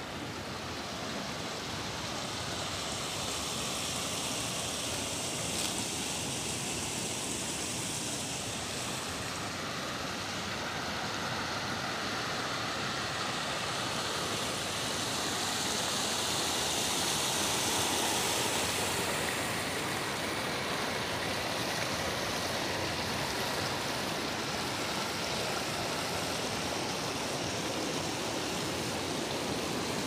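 Shallow stream rushing over stones, a steady hiss of running water that grows a little louder about halfway through.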